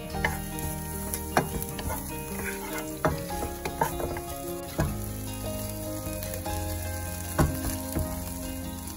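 Chopped garlic sizzling in hot olive oil in a non-stick frying pan, stirred with a wooden spatula. Broccoli florets are dropped into the pan, giving several sharp knocks over the sizzle.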